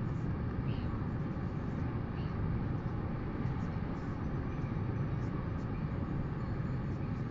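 Steady low rush of wind blowing across an outdoor microphone, with a few faint high chirps in the first two seconds.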